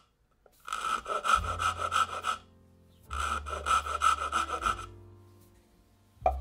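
Two runs of quick back-and-forth scraping strokes of a thin blade against the walnut box's wall, each lasting about a second and a half, with a short pause between them.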